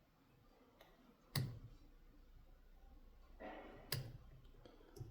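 Lock pick working the pin stack of an ASSA 700 pin-tumbler lock with Christmas-tree security pins: a few sharp small metallic clicks, the loudest about a second and a half in, with others near the end.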